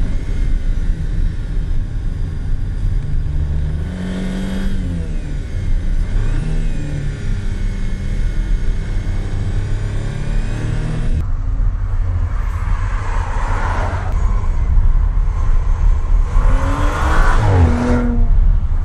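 2018 Audi RS4 Avant's 2.9-litre twin-turbo V6 exhaust under hard acceleration, its pitch rising and dropping several times. After a cut about halfway through, the engine climbs steeply twice more.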